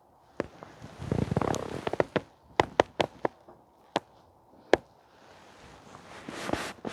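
Hands-on work on parts and tools: a rustle, then a run of sharp clicks and knocks, about eight over three seconds, and another rustle near the end.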